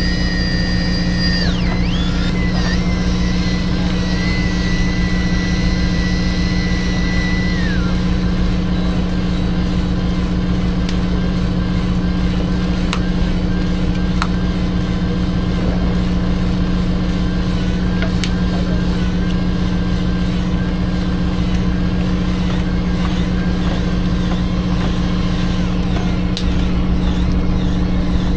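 Fishing boat's engine running steadily with an unchanging hum. A high whine rides over it, holding level and then dropping lower about eight seconds in.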